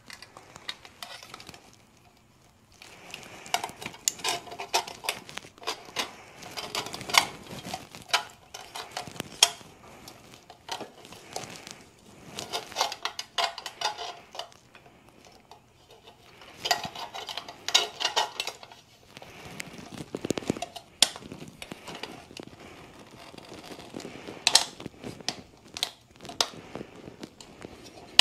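Metal parts of a motorcycle headlamp assembly clinking, tapping and rattling as the headlight is handled and worked into its housing, in bursts of clicks with short pauses between.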